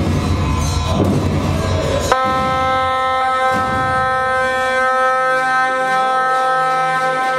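Tibetan gyaling (double-reed shawms) sounding one long, steady held note that starts sharply about two seconds in. Before it there is a dense, noisy stretch of loud ritual music.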